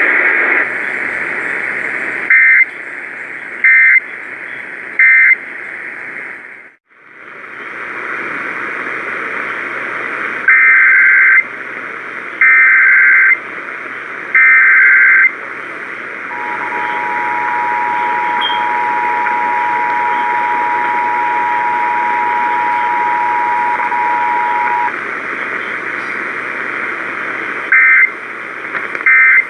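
Emergency Alert System tones received over a radio through steady static hiss. It starts with three short data bursts, then the signal drops out briefly. Three longer SAME header bursts follow, then the two-tone attention signal held for about eight seconds, and near the end come short end-of-message bursts.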